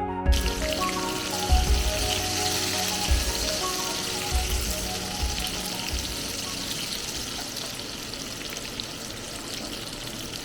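Food frying in hot oil in a pan, a steady sizzle, with background music fading out in the first half.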